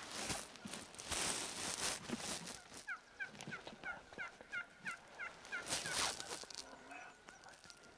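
Wild turkey toms gobbling in loud, harsh bursts, about a second in and again near six seconds, with a quick run of about ten short yelping notes in between.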